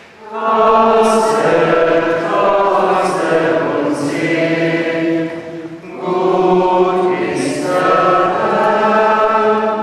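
A congregation singing a hymn together, two long sung phrases with a brief pause for breath about six seconds in.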